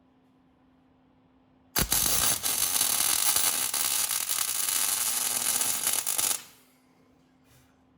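MIG welder arc running on 75/25 argon-CO2 gas as a bead is laid to fix the hinge's loose bearing in place. The crackling arc starts abruptly about two seconds in, runs steadily for about four and a half seconds, then stops.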